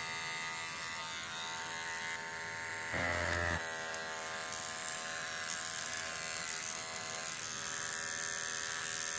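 Baorun P2 pet hair trimmer buzzing steadily as it clips the fur on a dog's paw, with a brief louder burst about three seconds in.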